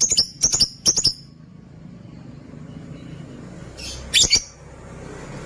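Lovebirds calling with sharp, high-pitched chirps: a quick run of about three calls in the first second, then a short burst of two or three about four seconds in.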